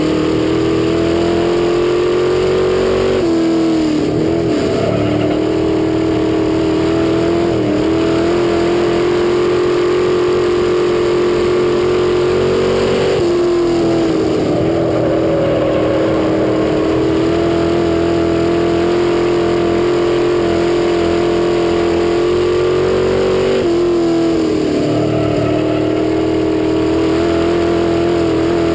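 Hobby stock dirt-track race car's engine running hard at high revs, picked up close by a bumper-mounted camera. Its pitch dips briefly and climbs back three times, about ten seconds apart, as the throttle comes off for the turns and goes back on.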